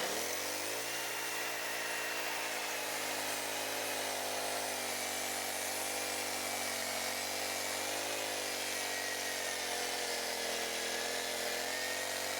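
Wood-Mizer portable bandsaw sawmill's engine revving up at the start, then running steadily at full throttle as the blade cuts through a log, with a thin high whine over the engine note.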